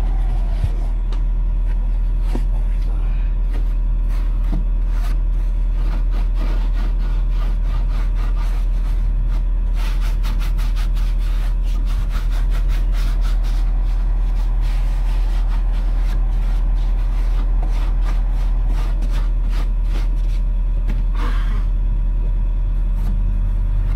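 Heavy-equipment engine running steadily at constant speed, with a rapid rattling about ten seconds in that lasts a few seconds.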